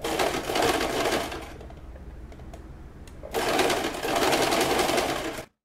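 Domestic sewing machine stitching a zigzag seam, attaching elastic to fabric. It runs in two loud spells with a quieter stretch between them, and the sound cuts off abruptly near the end.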